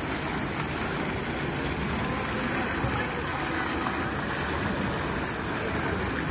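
Steady crowd hubbub: many indistinct voices blended into a constant rushing background, with no single voice or event standing out.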